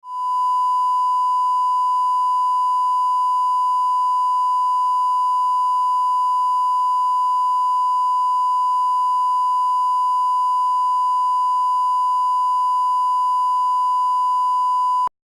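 A steady electronic test tone, one unchanging pitch like a long held beep, cutting off suddenly near the end.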